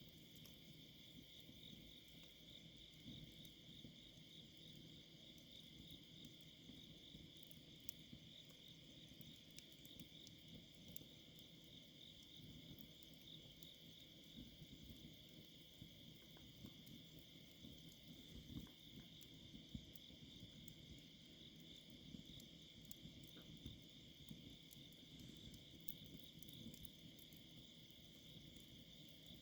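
Faint, steady chorus of night insects such as crickets, trilling without a break, with occasional soft crackles from a campfire.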